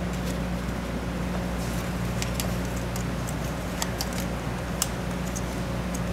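Gloved hands handling wiring and plastic connectors on an engine's intake manifold, giving a few short sharp clicks, over a steady low hum.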